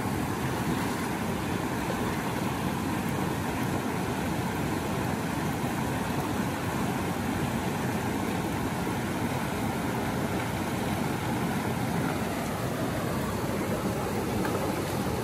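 Steady rush of river water pouring over a small falls and through rapids.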